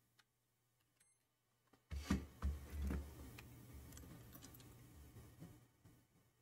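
Faint handling noise on a workbench: a few clicks and knocks of small objects being picked up and set down, starting about two seconds in, over a low hum.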